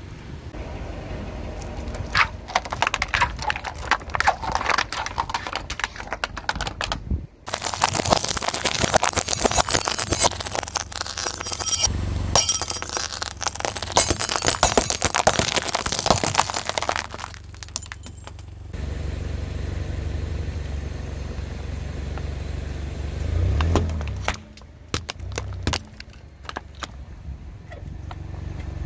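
A car tyre crushing objects on asphalt: a run of crackling and snapping, then a longer, louder stretch of glass crunching and shattering as coloured glass light bulbs are run over. After that comes the car's low steady rumble with a few sharp cracks.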